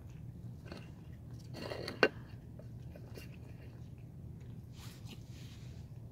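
Cats chewing and crunching food, with small scattered clicks over a steady low hum. A single sharp knock comes about two seconds in.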